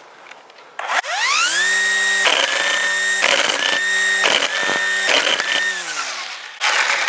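Ryobi cordless string trimmer's electric motor spinning up to full speed with a rising whine and running steady for about five seconds, with a series of sharp slaps as the extended line is cut to length by the blade on the guard. It then winds down near the end.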